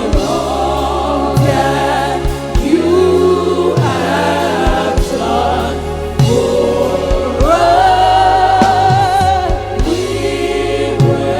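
Live gospel worship music: singers and a choir holding long, wavering sung notes over a band with steady bass and a drum beat.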